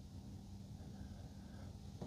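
Quiet room tone with a faint, steady low hum.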